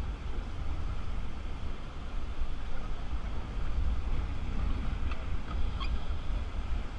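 Steady rush of river water around a raft, with wind rumbling on the microphone.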